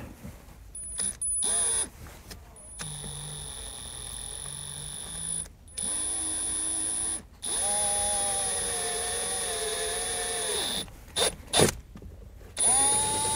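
Power drill with a 3/8-inch bit drilling a hole through a plastic dashboard trim panel. The motor whines in several separate bursts as the trigger is pulled and released, the longest about three seconds, with the pitch shifting between bursts.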